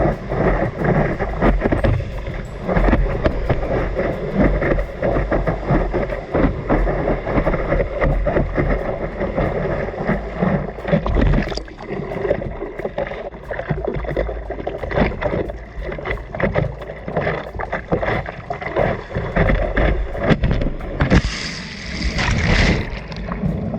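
Water splashing and sloshing around a surfboard in the surf, with wind buffeting the microphone. Near the end a louder, brighter hiss of rushing water lasts about a second and a half.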